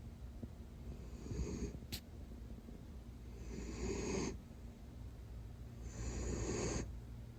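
Miniature dachshund snoring in its sleep: three snores spaced about two and a half seconds apart, each lasting under a second.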